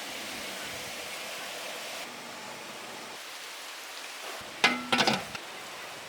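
Steady background hiss. About four and a half seconds in, a short run of sharp, ringing metal clinks from the metal plates of an idli steamer being handled while the momos are set on them.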